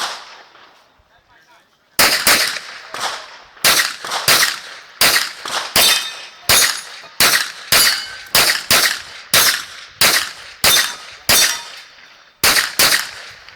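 Glock 34 9 mm pistol fired in a fast string of about two dozen shots, many in quick pairs, starting about two seconds in, with a short pause near the end.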